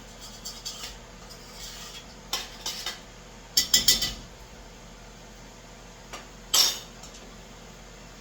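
Metal kitchen utensils and cookware clinking and clattering in a few short bursts, loudest about three and a half seconds in and again briefly about six and a half seconds in.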